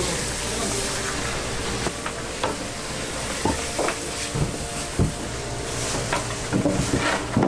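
Water hissing from a hose spray nozzle as it rinses a whole tuna and the wet floor, with scattered knocks and clatter from about two seconds in, thickest near the end.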